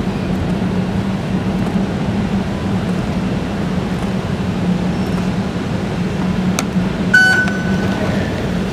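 Steady low machinery hum in an MRT station concourse. About six and a half seconds in comes a click, then a short high beep from the fare gate as it is passed through; the beep is the loudest sound.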